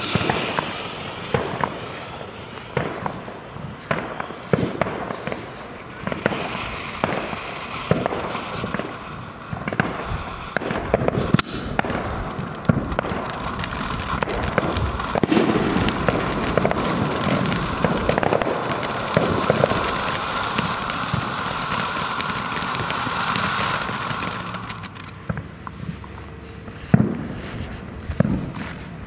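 Ground firework fountain burning: a steady hiss of spraying sparks with scattered crackles and pops. It dies away about 25 seconds in, and one sharp pop follows near the end.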